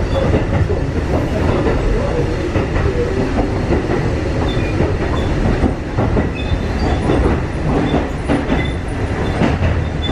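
Running sound heard inside a Kotoden 1300-series electric train car (ex-Keikyu 1000 series) under way: a steady rumble of wheels and running gear, with scattered clicks of the wheels over rail joints.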